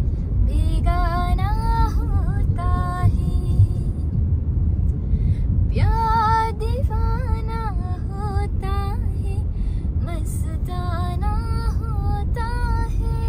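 A high voice singing a melody in phrases, with short breaks, over a steady low rumble typical of a moving car.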